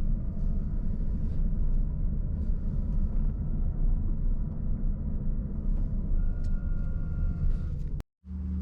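Car road and engine noise heard from inside the cabin while driving: a steady low rumble. It cuts out abruptly near the end and gives way to a smoother, steadier hum.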